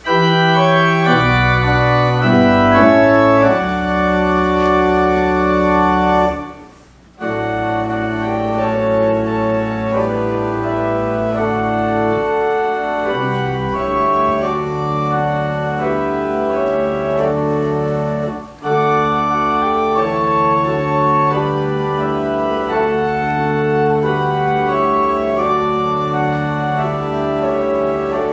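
Organ prelude: a church organ playing sustained chords over held bass notes, with two short breaks between phrases, about seven and eighteen seconds in.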